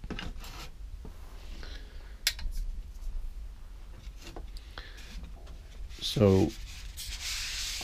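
Light clicks and knocks of a wooden model cradle and a balsa model fuselage being handled on a workbench, followed near the end by a few seconds of rubbing and rustling as the model is turned over.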